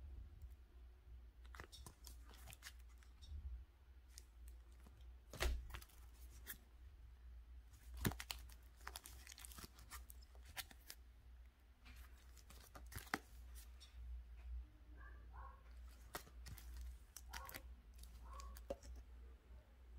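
Faint rustling and crinkling of nail sticker sheets in plastic sleeves being handled and flipped, with scattered sharp crackles over a low steady hum.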